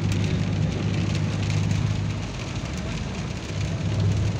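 Inside a car driving in rain: a steady low engine and road drone, with rain striking the windshield as a scatter of small ticks over it. The drone eases off about two seconds in and rises again near the end.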